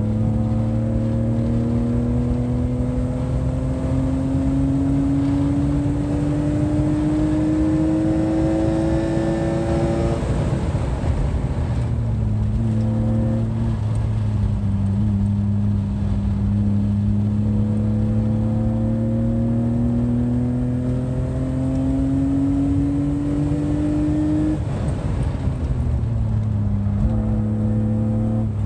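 A car's engine heard from inside the cabin under acceleration, its note climbing steadily for about ten seconds, easing off, then climbing again. It drops away near the end as the car slows, over a steady drone of road and tyre noise.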